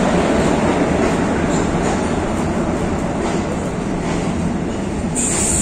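Passenger train rolling along a station platform, heard through an open coach door: a steady rumble of wheels on rail with a few faint clicks. A high-pitched squeal starts near the end, typical of brakes as the train slows into the station.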